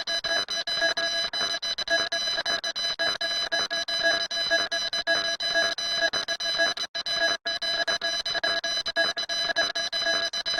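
A harsh electronic tone made of several steady pitches, stuttering very rapidly throughout, with two brief dropouts about seven seconds in.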